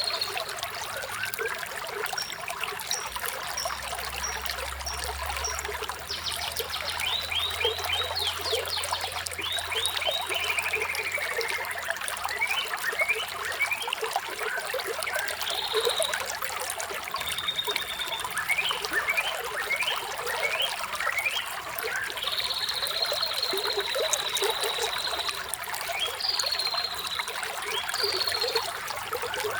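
Running water trickling and splashing steadily, with songbirds chirping over it: rapid trills, runs of repeated chirps and a few falling whistled notes.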